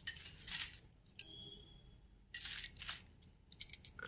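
Glass bangles clinking against each other as they are handled, with a short ringing clink about a second in. Bubble wrap rustles in between.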